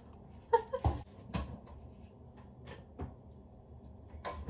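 Kitchen wall cupboard being opened: a few separate knocks and clicks from the door and the things handled inside, about a second in, again near three seconds and near the end.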